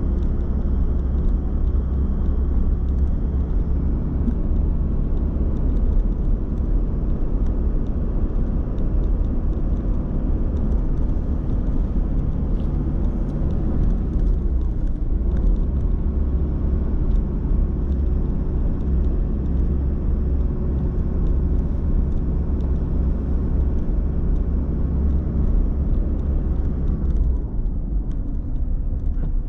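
A vehicle driving, with engine hum and road rumble throughout; the engine pitch dips and climbs again about halfway through.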